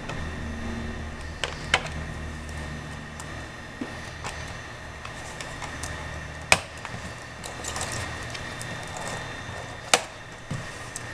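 Sharp plastic clicks and snaps, about seven of them spread out, loudest about six and a half seconds in and again near ten seconds. They come as the plastic hinge cover strip above the keyboard of a Dell Inspiron 1750 laptop is pried loose with a guitar pick and its clips let go.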